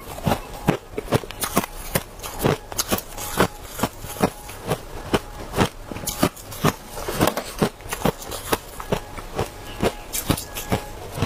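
Hard crushed ice being chewed: sharp, irregular crunches, two or three a second.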